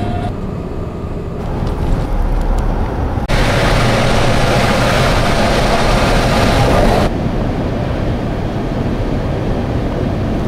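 Steady road and wind noise of a moving vehicle, pieced together from several clips, so the noise changes abruptly a few times. It is loudest and hissiest for about four seconds in the middle.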